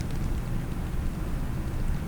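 Close-miked rubbing and scratching on a case, a dense low rumble with only a few faint clicks.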